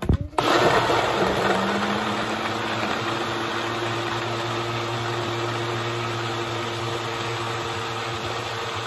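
Countertop blender switched on and running steadily at full speed, blending a sea moss, juice and water smoothie. It starts loudly just after the start, then holds a constant motor hum under the churning.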